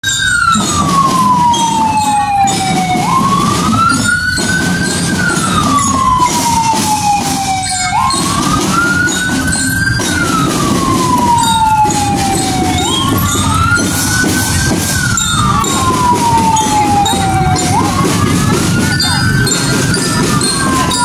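A wail siren going up and down in slow cycles. Each cycle climbs in pitch for about two seconds and falls for about three, repeating about every five seconds over steady background noise.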